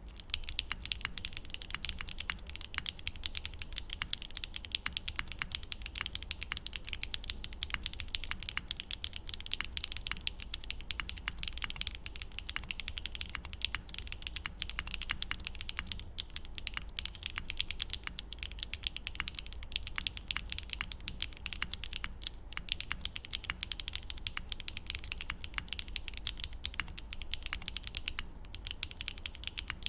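Continuous fast typing on a QK65v2 gasket-mounted mechanical keyboard with an aluminium plate and no foam, fitted with HMX Yamatake tactile switches and PC (polycarbonate) DMK Yeti keycaps: a dense, steady stream of key clacks, with short pauses twice near the end.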